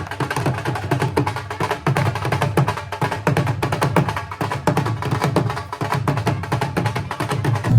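Background music with busy, rapid percussion; the music changes abruptly right at the end.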